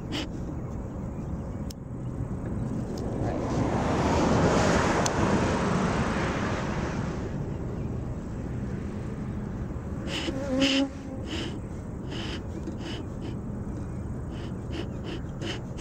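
Beekeeper's smoker bellows being pumped in short puffs of air while the kindling inside is coaxed alight, over wind buffeting the microphone. A broad rushing sound swells and fades a few seconds in.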